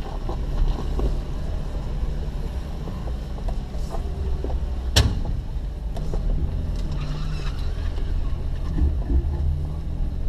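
Vehicle engine running steadily, with one sharp pop about halfway through and a few fainter clicks before it.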